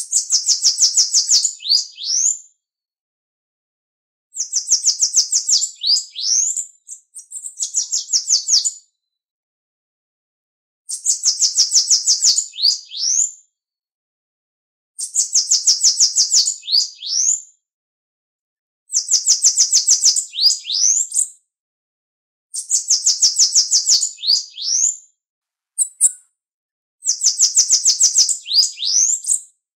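Bananaquit song repeated about seven times, each phrase a high, rapid trill of about two seconds ending in a few upslurred notes, with clean silence of a second or two between phrases.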